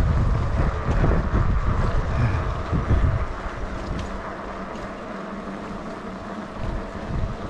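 Wind rumbling on the microphone over the steady running noise of a moving vehicle. The rumble is heaviest for the first three seconds, then eases.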